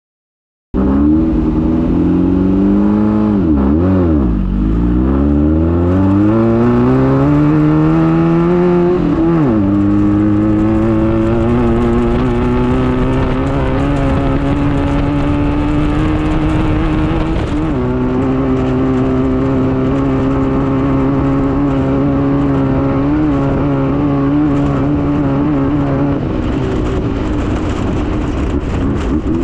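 Air-cooled Volkswagen flat-four engine of a Class 9 desert race buggy running hard under load. It cuts in suddenly about a second in, dips and recovers in revs, then climbs steadily to a gear change about nine seconds in and climbs again to another shift near eighteen seconds, after which it holds at a fairly steady pitch.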